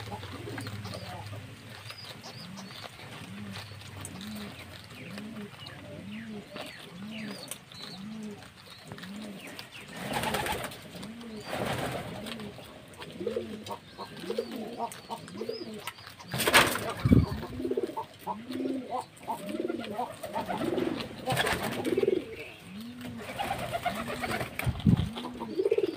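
Pigeons cooing in a steady series of low notes that rise and fall, a little more than one a second, with more birds joining at different pitches in the second half. A few short bursts of noise break in, the loudest a little past halfway.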